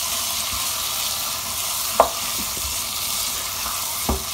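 Raw mutton pieces sizzling in hot oil in a nonstick pan on medium-high heat as they are stirred with a plastic spatula, the meat searing at the start of frying. A sharp knock of the spatula against the pan about halfway through, and another near the end.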